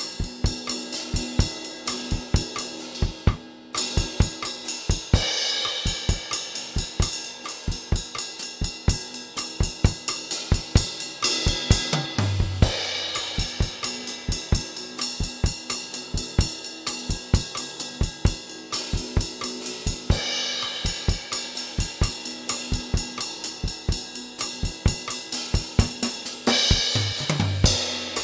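Acoustic drum kit played in a steady groove: kick drum, snare and hi-hat, with cymbal crashes every several seconds. The playing drops out briefly about three and a half seconds in.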